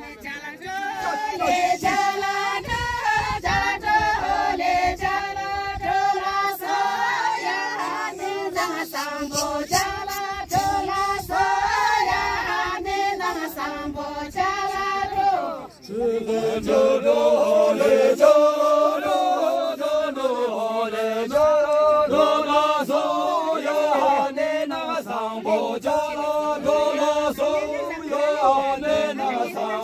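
A group of men and women singing a folk song together in unison. The singing breaks off briefly about halfway through and then carries on at a higher pitch.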